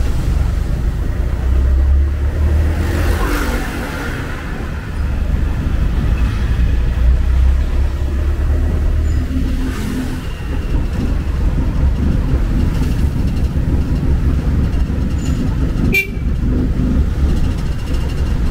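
Steady low rumble of engine and road noise heard while riding in a songthaew, a pickup-truck taxi, with passing traffic around it.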